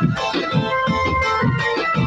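Loud music: a melody over a steady drumbeat of about three beats a second.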